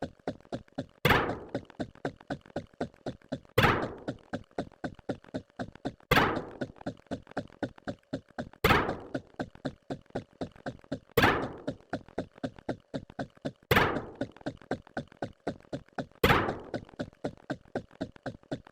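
Repeating percussive sound-effect loop: a loud thunk about every two and a half seconds, with quick lighter clicks, about four or five a second, between the thunks.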